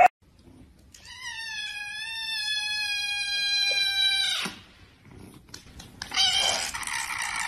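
Kitten meowing: one long, loud, steady-pitched meow that cuts off abruptly, then, after a short pause, a second rougher, raspier cry near the end.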